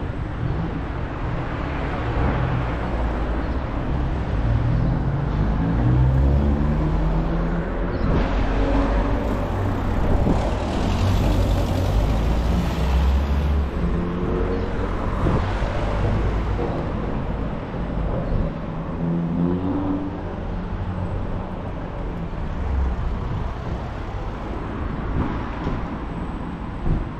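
Town street traffic: car engines passing and accelerating, their notes rising a few times, over a steady low rumble.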